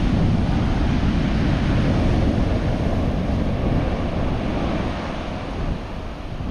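Waves breaking on the beach, with wind rumbling on the microphone; the noise dips slightly near the end.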